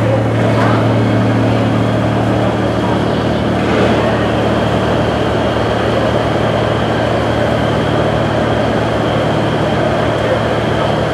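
A ship's engine running with a steady low hum, under an even broad rush of noise.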